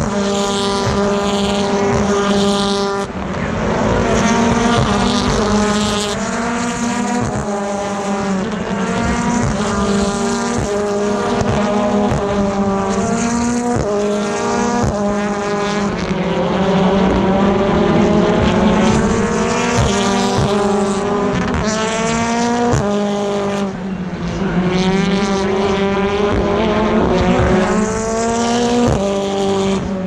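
BTCC touring cars accelerating one after another out of the Druids hairpin. Their 2.0-litre turbocharged four-cylinder engines rev up through the gears, over and over, each rising note cut off by an upshift.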